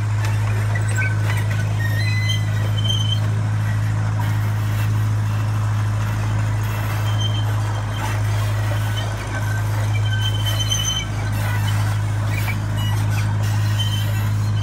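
Miniature zoo train running along, heard from its open coach: a steady low drone from the moving train.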